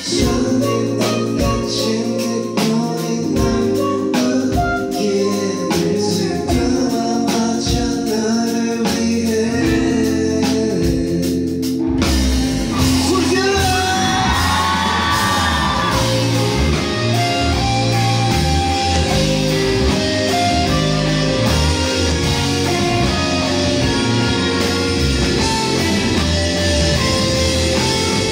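Live band music: a Rickenbacker electric bass and a drum kit playing a steady rhythm with other instruments. The sound turns fuller and denser about twelve seconds in.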